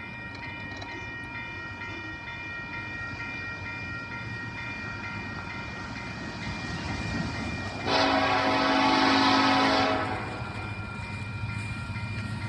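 Railroad crossing bell ringing at about three strokes a second over the low rumble of an approaching diesel freight train. About two-thirds of the way through, the locomotive's air horn sounds one long blast of about two seconds.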